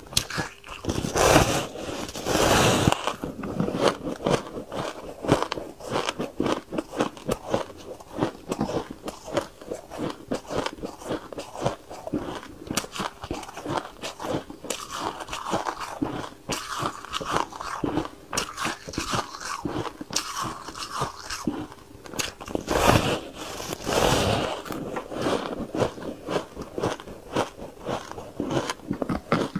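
A person biting and chewing a block of white ice close to the microphone: a dense run of crunching and crackling as teeth break the ice, with heavier bites about a second in and again about two-thirds of the way through.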